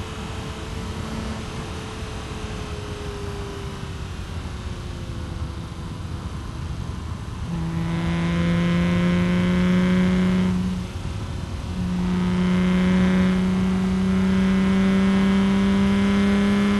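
BMW M3 E36 straight-six engine through a Supersprint street exhaust with the catalytic converter removed, heard from inside the cabin. For the first seven seconds or so the note is quieter and sinks slowly as the car coasts. Then it turns loud and pulls with the pitch climbing slowly, breaks off briefly near eleven seconds, and pulls again.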